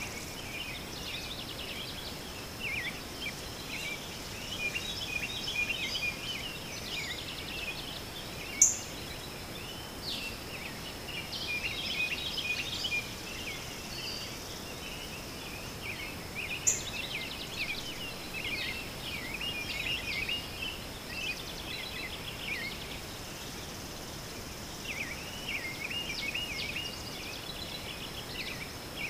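Birds chirping, many short overlapping calls, over a steady high-pitched whine. Two sharp clicks stand out, one about a third of the way in and one just past halfway.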